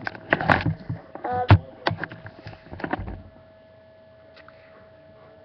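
A quick run of sharp clicks and knocks for about three seconds, the loudest about a second and a half in, with a brief pitched sound among them, then only a faint steady hum.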